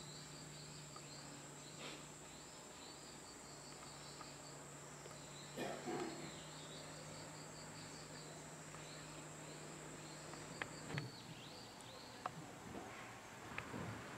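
Faint insect chirping in short repeated trills, over a steady high whine and a low hum that both stop about eleven seconds in, with a few light knocks.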